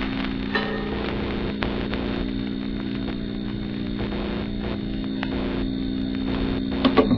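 Electrical hum and buzz of lit sign lamps, steady throughout, with a few sharp crackling clicks and a louder crackle near the end.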